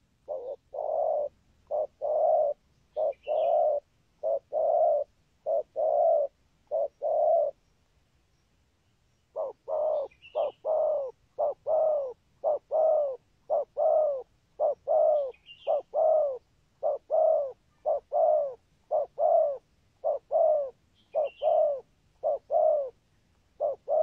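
Spotted dove cooing: a long run of short, low coos, many in quick pairs, with a pause of about two seconds a third of the way through. A few faint higher chirps come in now and then.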